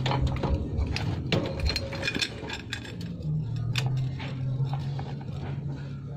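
Scattered clicks and knocks over a steady low hum, typical of a phone being handled with its lens covered.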